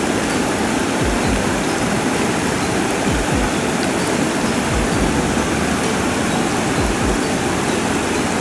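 Steady rushing of water pouring over a weir, an even hiss with a few brief low thumps on the microphone.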